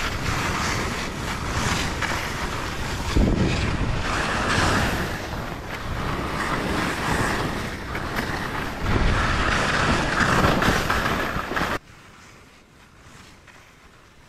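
Skis sliding and turning through deep powder snow, with wind rushing over the helmet camera's microphone and louder surges now and then. It cuts off suddenly about twelve seconds in, leaving a faint hiss.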